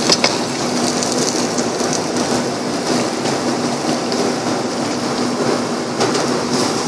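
Steady rushing noise of a large pot of rice water at a rolling boil over a commercial gas burner, with a few metallic clinks of a perforated steel ladle knocking against the aluminium pot as rice is scooped out.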